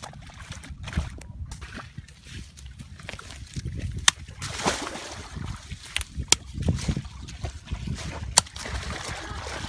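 A knife chopping small crabs on bare ground: three sharp chops about two seconds apart over a low rumble.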